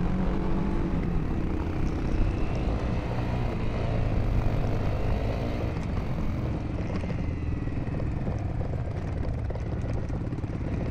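Royal Enfield Himalayan's single-cylinder engine running as the bike rides a dirt track, its note rising and falling with the throttle, over steady wind and tyre noise.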